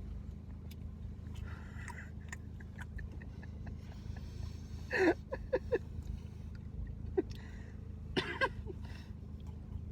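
Steady low hum of a car's engine heard from inside the cabin, with small scattered clicks and two brief louder sounds about five and eight seconds in.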